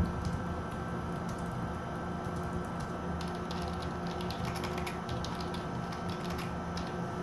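Typing on a Logitech K380 wireless keyboard: a quick, irregular run of light key clicks.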